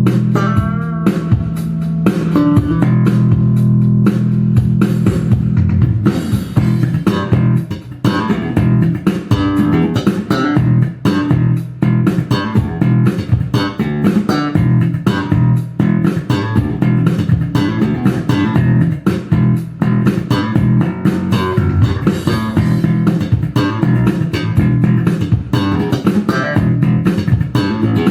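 Tobias Growler four-string electric bass played solo: a few held low notes, then from about six seconds busy slapped and popped notes with a sharp percussive snap.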